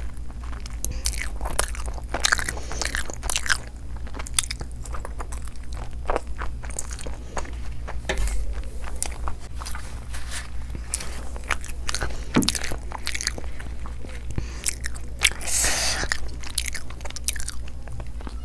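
Close-miked eating sounds of fried chicken curry and rumali roti: chewing and biting with many quick wet smacks and clicks, and a longer rustling stretch about fifteen seconds in. A low steady hum lies underneath.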